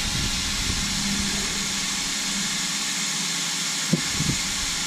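Small electric cooling fans on an RC car's brushless motor and ESC running, a steady airy whir. A light click about four seconds in.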